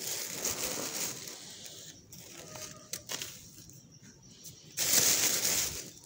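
Clear plastic feed sack crinkling and dry poultry feed pellets rustling as a hand scoops them into a clay feeding dish. The loudest rush comes near the end.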